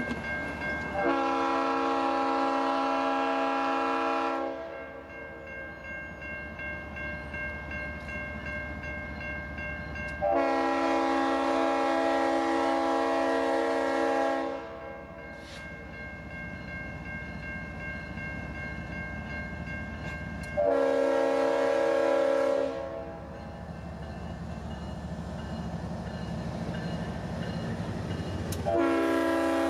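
Leslie RS-5T five-chime air horn on a GE diesel freight locomotive sounding the grade-crossing pattern: long, long, short, then a final long blast that is still sounding at the end. Between the blasts there is a steady ringing and a low locomotive rumble.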